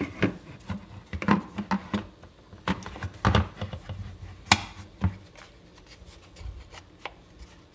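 Handgun being seated and worked in a Safariland ALS holster: a run of irregular clicks and knocks from gun against holster, the sharpest about four and a half seconds in, then fading to quieter handling.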